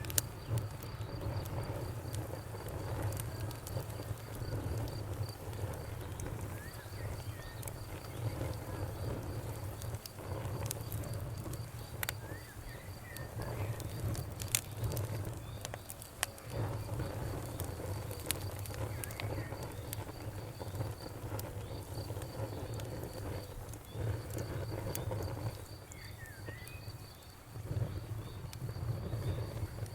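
Campfire crackling, with scattered sharp pops over a low rumble of the burning wood. Crickets chirp throughout in a steady, high, pulsing trill.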